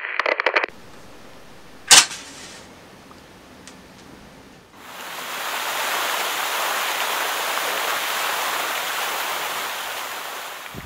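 A single sharp crack about two seconds in, then from about five seconds a steady rush of water splashing into a shallow puddle.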